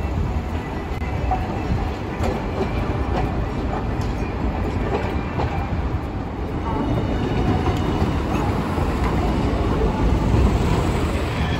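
Hiroshima Electric Railway streetcars running past on street track, with a steady rumble of steel wheels on the rails mixed with road traffic. It grows louder in the second half as another tram passes.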